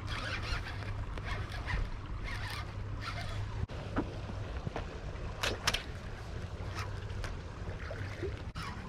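Steady low rumble of wind on the microphone beside moving water, with scattered sharp clicks and short splashy bursts.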